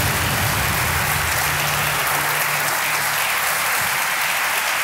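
Studio audience applauding steadily, greeting a correct answer on a quiz show.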